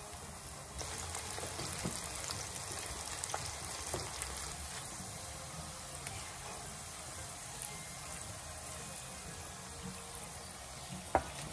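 Sweet potato sticks coated in potato starch deep-frying in hot oil in a pan: a steady sizzle with light crackling, which grows louder about a second in. Near the end comes one sharp knock.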